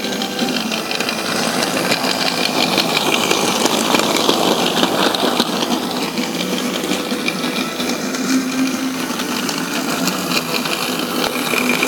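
Battery-powered toy train running around a plastic oval track: its small electric motor buzzes steadily, with a rapid, continuous rattle of the wheels on the track.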